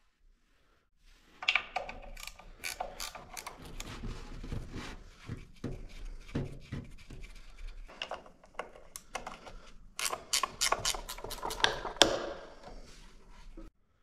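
Hand ratchet wrench clicking in short irregular runs as bolts are turned, with a sharper clack near the end.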